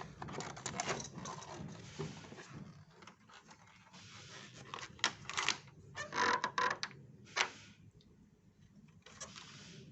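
Handling noise from unboxing: irregular rustles, scrapes and light knocks of packaging and parts being handled, with the loudest bunch a little past the middle.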